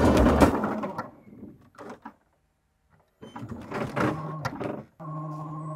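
Background music fades out, and after a short silence the electric drive of a 3D-printed tracked tank starts up: clicking and clattering from the tracks, then a steady whine from the drive motors, broken off briefly near the end.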